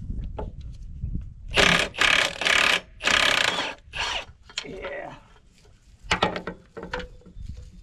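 Wrench work on the loader's hydraulic hose fitting: short metallic clicks and knocks of tools on the fitting, with three louder noisy bursts between about one and a half and four seconds in.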